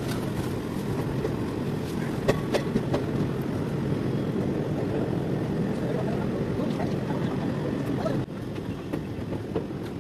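A train running along the line, heard from the open carriage door: a steady low rumble with wind on the microphone and a few sharp clicks about two to three seconds in. The level drops somewhat just past eight seconds in.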